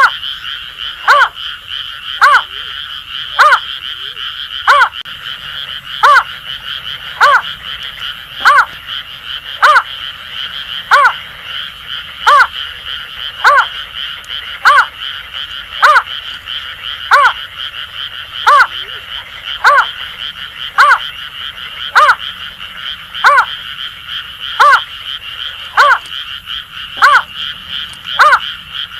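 Greater painted-snipe calling: a short hooting note repeated steadily about once a second, over a continuous high-pitched chorus of Asian grass frogs.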